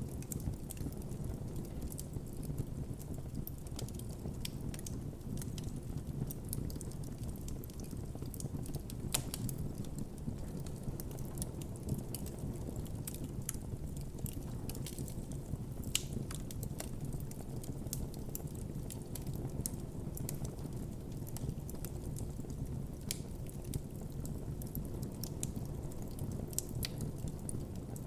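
Campfire crackling and popping: irregular sharp snaps scattered throughout over a steady low rumble of the flames.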